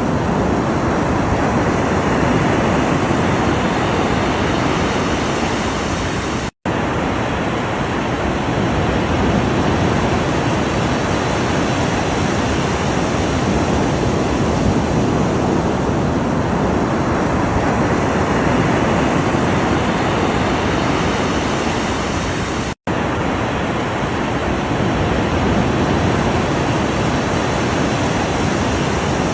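Ocean surf: a continuous wash of breaking waves that slowly swells and eases, broken by two split-second dropouts to silence, about six and a half seconds in and again near the end.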